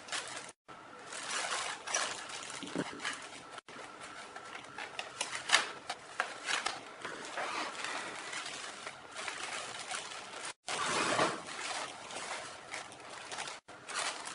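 Plastic zip bags and foam packing wrap rustling and crinkling as they are handled and unwrapped, in irregular crackly bursts with a few very brief drop-outs.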